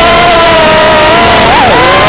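FPV whoop drone's motors and propellers whining at low throttle, the pitch holding fairly steady, with a quick rise and drop about one and a half seconds in as the throttle is blipped.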